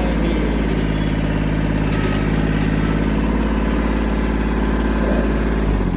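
Tractor engine running steadily, its sound dropping off near the end.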